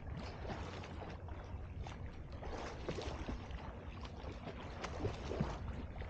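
Sea water lapping and splashing around a floating swimmer, close to the camera's microphone at the surface, with many small irregular splashes over a low rumble.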